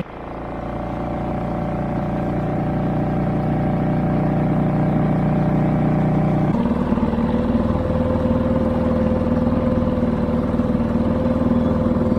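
Small outboard motor on an inflatable boat running under way, a steady drone that builds over the first few seconds. Its note changes abruptly about six and a half seconds in.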